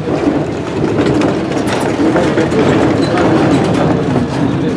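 A 1909 ASEA tram motor car running along street rails, heard from inside its wooden cabin: a steady rumble of wheels and running gear on the track, with a few faint clicks.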